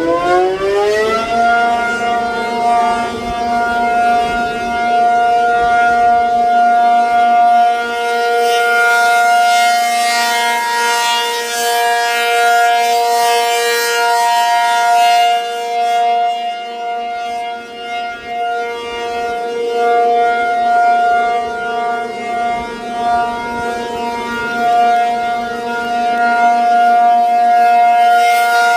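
ACA Penetrator 50 (P-50) outdoor warning siren winding up, its pitch rising to full speed in the first second or so. It then holds a very loud steady alert tone, made of several pitches at once, that swells and fades every several seconds.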